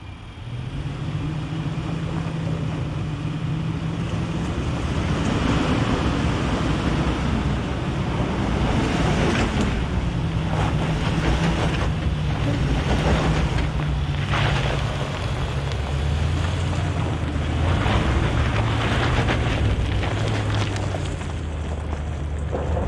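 2022 Nissan Armada's 5.6-litre V8 working hard under load as it climbs a steep, muddy hill in four-wheel-drive low. The engine note drops to a lower pitch about two-thirds of the way through, with scattered bursts of noise from the tyres and terrain over it.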